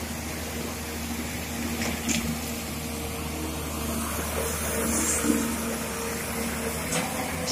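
Komatsu PC200 excavator's diesel engine running steadily under load as the boom raises a full bucket of gravel and swings it toward the truck, with a couple of faint knocks from the machine.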